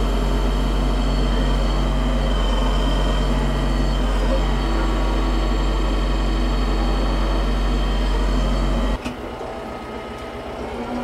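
TYM tractor running with its loader-mounted Lane Shark hydraulic brush mower spinning and cutting dry brush: a loud, steady drone with a deep hum. About nine seconds in it drops suddenly to a quieter, more distant tractor engine running.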